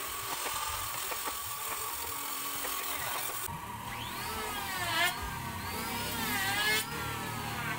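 Light hammer taps on a wooden window frame. About three and a half seconds in, the sound changes abruptly to sliding, wavering pitched tones over a low hum.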